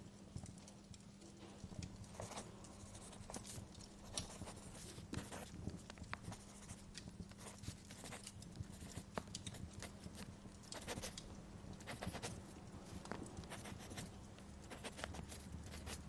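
Fire crackling in a fireplace: irregular sharp pops and snaps over a steady low hum, with a low rumble swelling near the end.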